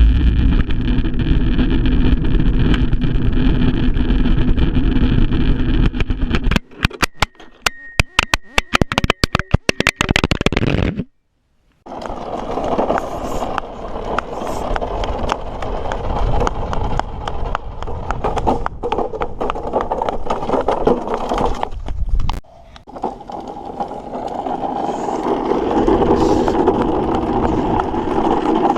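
Toy truck rolling fast down a steep hill, its wheels making a loud rumble, then a quick run of sharp knocks as it crashes and tumbles. After a short break it rolls down again with the same steady rumble.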